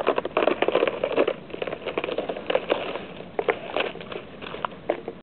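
Thin puddle ice crackling and crunching in irregular clusters of sharp cracks, densest in the first second and a half and sparser after that.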